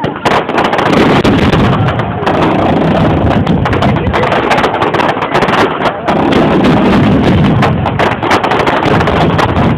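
Fireworks display going off in a dense barrage: many shells and fountains fire at once, giving a continuous stream of rapid bangs and crackling.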